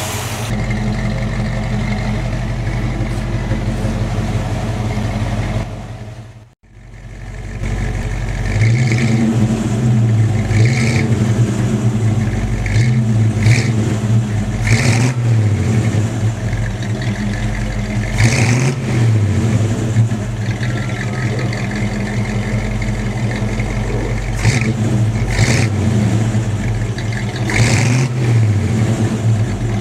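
1957 Chevrolet Bel Air's 283 small-block V8 idling, then blipped again and again, each rev rising quickly and dropping back to idle; the sound cuts out briefly about six seconds in. The engine is freshly tuned, with the ignition timing set and the carburetor's air-fuel mixture dialed in.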